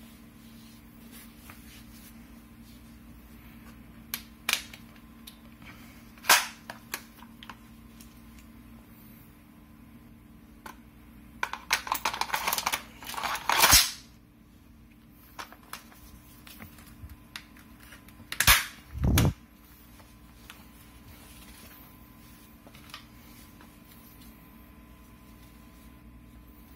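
Sharp clicks and knocks of an IWI X95 bullpup rifle's polymer and metal parts being handled and fitted together, with a quick rattle of clicks around the middle and two loud snaps a few seconds later.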